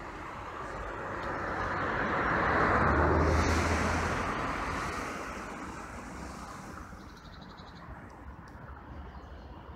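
A road vehicle driving past close by, its noise swelling to a peak about three seconds in, then fading away over the next four seconds.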